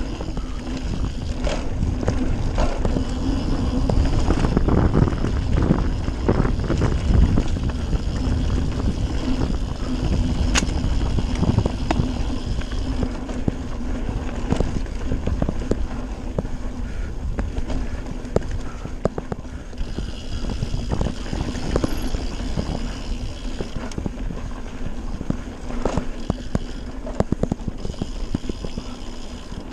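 Radon Swoop 170 mountain bike rolling fast down a dirt trail: the knobby tyres rumble over the ground with a faint hum, and the bike clatters with many short knocks over roots and bumps.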